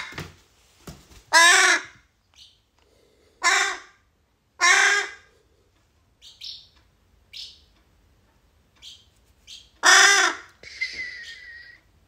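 Fledgling crow cawing: four loud caws of about half a second each, with softer, shorter, higher calls in between and a rougher, raspier call near the end.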